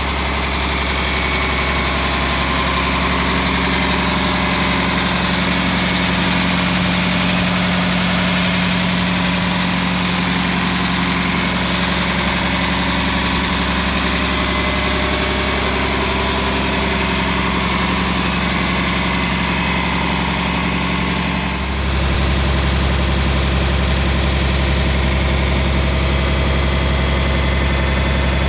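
John Deere 4520's six-cylinder diesel engine idling steadily. The low hum shifts abruptly about three-quarters of the way through.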